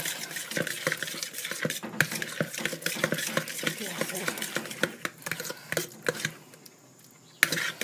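A utensil stirring and beating thick instant mashed potatoes in a plastic bowl: quick irregular scrapes and clacks against the bowl. The stirring stops about six seconds in, with one more knock near the end.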